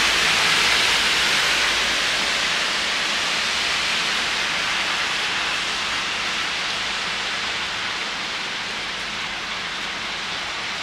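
Steady rain falling on a city street, an even hiss that slowly grows fainter.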